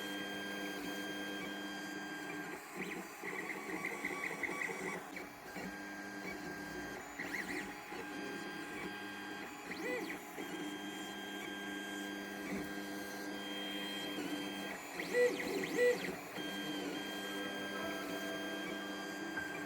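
Ender 3 FDM 3D printer printing. Its stepper motors whine in steady tones that change pitch and stop and start as the print head moves, with short warbling runs of quick moves.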